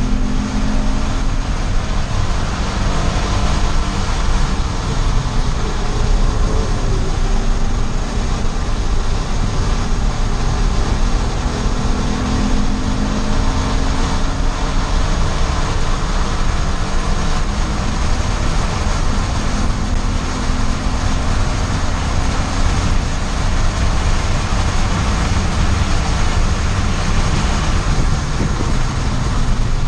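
Race car running at speed on a track, engine pitch rising and falling with the throttle over a constant rush of road and wind noise.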